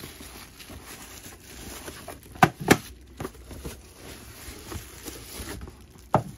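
Bubble wrap crinkling and cardboard rustling as bubble-wrapped boxes are handled and lifted out of a cardboard box, with two sharp knocks close together about two and a half seconds in and another near the end.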